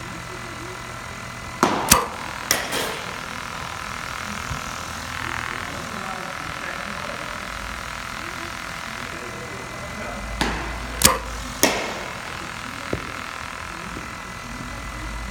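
Sharp cracks of a bat hitting pitched balls in batting practice. There are a few close pairs about two seconds in, then a quick cluster of three a little past ten seconds, all over a steady low hum.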